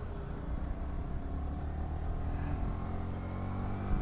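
An engine running steadily at low revs, a low even rumble.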